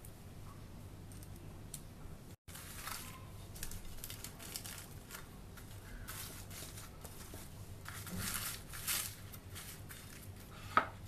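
Faint, irregular crinkling and rustling of plastic cling film stretched over dough balls, with a single sharp click near the end.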